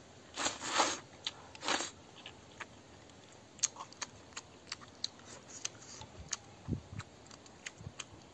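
A person slurping up rice noodles, two loud slurps in the first two seconds, then chewing with scattered small wet clicks.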